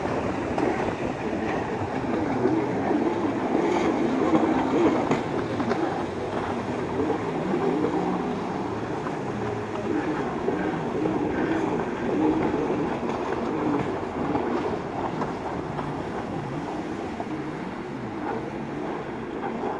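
Stand-up jet ski engines running at racing speed, their pitch rising and falling as the riders throttle through the turns.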